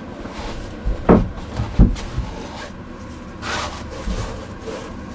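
Thuds and rustling as a large slab of upholstery foam is lifted and handled, with two sharp knocks about a second and nearly two seconds in and a brief rustle past the middle.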